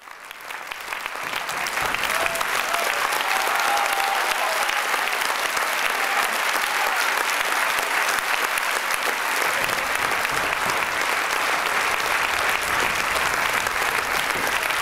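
Audience applauding: dense, steady clapping that swells in over the first couple of seconds and then holds.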